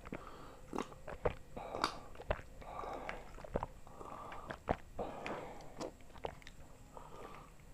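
Close-miked drinking of an iced orange juice drink from a glass: an irregular run of gulps and swallows with sharp wet mouth clicks.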